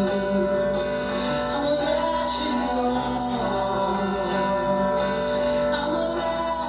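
A male singer singing in a high register, with long held notes, over his own acoustic guitar accompaniment.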